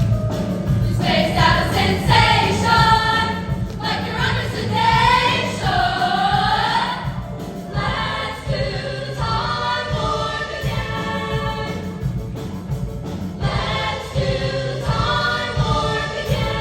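Junior high girls' choir singing sustained phrases with music, the voices pausing briefly between phrases.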